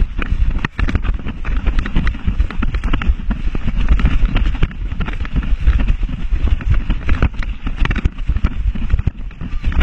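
Rumble and jolting from an action camera harnessed to the back of a running dog, with many rapid, irregular knocks as the camera and harness shake with its strides.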